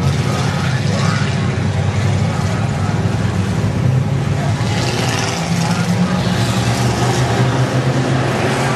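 A field of V8 stock cars racing around an oval, their engines blending into a loud, steady drone.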